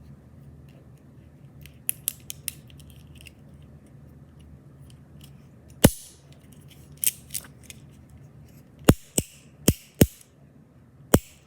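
Sharp, crisp clicks and snaps from small fidget toys being worked by hand: a quick flurry of light clicks about two seconds in, then a string of single, louder snaps spaced roughly a second apart.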